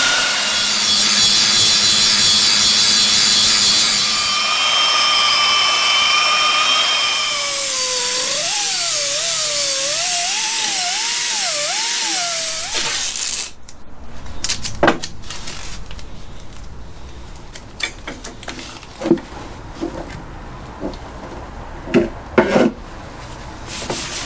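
Power tool fitted with 24-grit abrasive sanding steel tubing to strip mill scale, its motor whine wavering in pitch as the load changes. It stops about halfway through, and a few scattered knocks and clicks follow.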